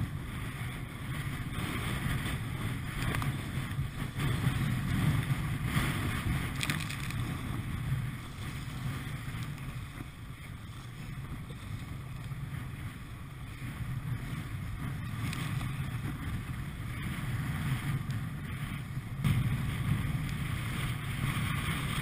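Gusty wind buffeting the microphone, rising and easing, over choppy water splashing around a Hobie Compass pedal kayak.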